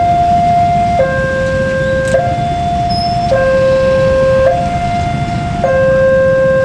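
Railway level-crossing warning alarm sounding a two-tone signal, high and low tones alternating about once a second, over the low rumble of traffic waiting at the crossing.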